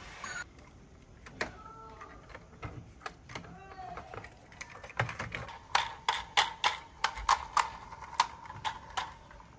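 Clicks and taps of diecast toy cars being handled: small metal-and-plastic parts clicking and knocking. A quick run of about ten sharp clicks, two or three a second, fills the second half.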